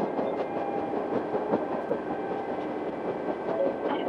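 Akechi Railway diesel railcar Akechi 102 running along the line, heard from inside the car: a steady mix of engine and wheel noise with quick, closely packed clicks of the wheels on the rails.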